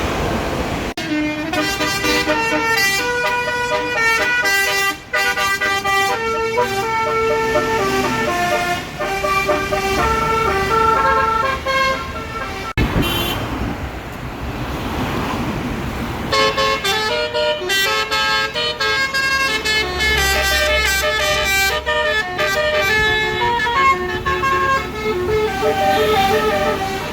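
Bus 'Basuri' telolet multi-tone air horn playing a rapid melody of stepped notes, in two long runs with a break of about three seconds of noise between them.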